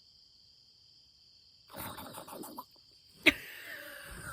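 Crickets trilling steadily. About two seconds in comes a short rustling sound, then a sharp, loud click a little after three seconds, followed by a faint falling animal call.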